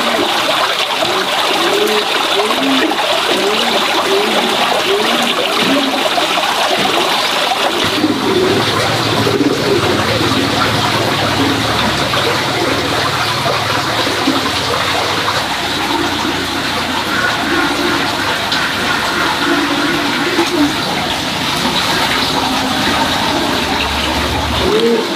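Steady rush of running water, with short low bird calls now and then.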